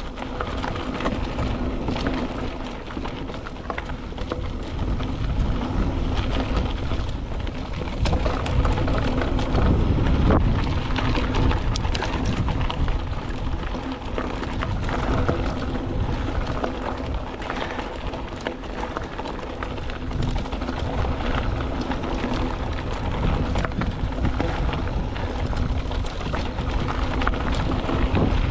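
Mountain bike riding fast down a dirt single-track: wind buffeting the microphone over the rush of tyres on dirt and gravel, with constant rattling and clicking from the bike over rough ground. It grows louder about a third of the way in.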